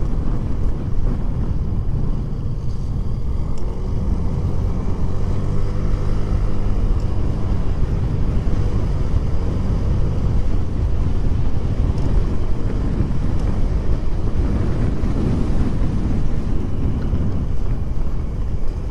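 Honda Click 125 scooter under way, its single-cylinder engine running beneath a steady low rush of wind on the microphone. The engine note rises and falls a few seconds in.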